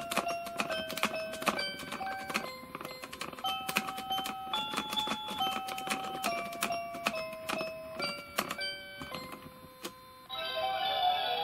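A PreCure Sweets Pact toy playing an electronic melody through its small speaker: a tune of single bell-like notes over a ticking beat, the linked sound set off by an Animal Sweets charm. About ten seconds in it switches to a fuller, louder passage.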